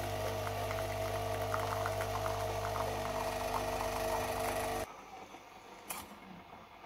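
Philips Senseo pod coffee machine's pump running with a steady hum as coffee streams into the cup, with faint sputtering, then cutting off suddenly about five seconds in as the brew cycle ends normally. A light click follows about a second later.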